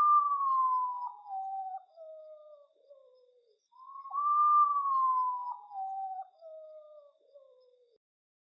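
Common potoo (urutau) singing: two long whistled phrases, each rising slightly and then falling in steps to a low note. The first is already under way at the start, and the second begins a little less than four seconds in.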